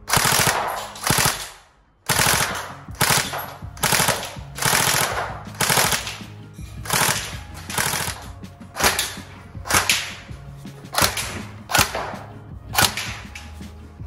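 Tokyo Marui next-generation SCAR-L electric airsoft gun firing about a dozen short full-auto bursts, each a rapid string of shots.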